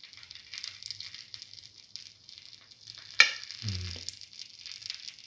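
Hot oil in a cavity fritter pan sizzling faintly around a small test drop of lentil batter, a sign that the oil is hot enough to fry. About three seconds in comes one sharp click, followed by a short low hum.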